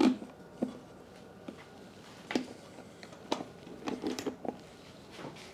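Irregular clicks and light knocks as an air cleaner housing is pushed and fitted by hand onto a small engine's carburetor, with a quick cluster of clicks about four seconds in.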